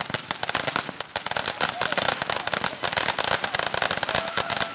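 Ground fountain firework spraying sparks, with a dense, fast crackle of many small pops.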